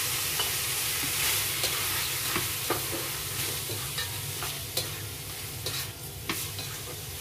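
Squid pieces sizzling in a hot wok with bell pepper and onion as they are stir-fried, the spatula scraping and clicking against the pan every second or so. The sizzle slowly dies down.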